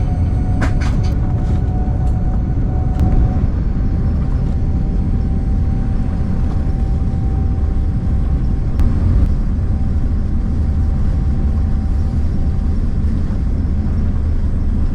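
Jet airliner's engines at takeoff power, heard from inside the cabin: a loud low rumble with a steady engine whine that rises a little over the first few seconds and then holds. There are a few brief rattles about a second in.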